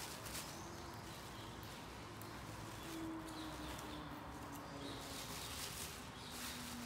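Faint crinkling and rustling of a thin clear plastic sheet as gloved hands pick it up and move it, in short irregular rustles.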